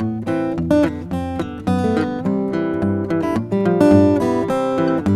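Solo cutaway acoustic guitar played fingerstyle: low bass notes picked with the thumb under a plucked melody on the higher strings, several notes a second.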